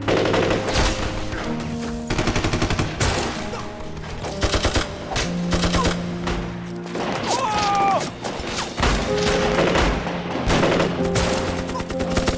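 Film battle soundtrack: rapid bursts of submachine-gun and machine-gun fire with scattered single shots, over a dramatic orchestral score with long held notes.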